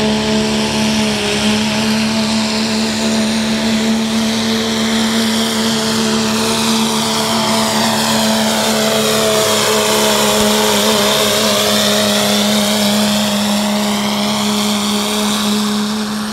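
Dodge Ram 2500's 5.9 Cummins inline-six turbo-diesel held flat out at a steady high pitch, straining as it drags a weight-transfer pulling sled down the track. It passes closest about ten seconds in.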